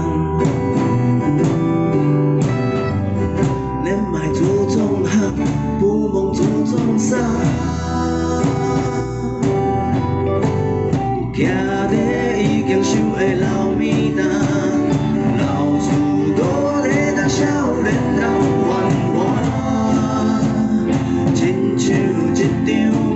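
Live band music: strummed acoustic guitar, electric guitar and drum kit, with a man singing over them.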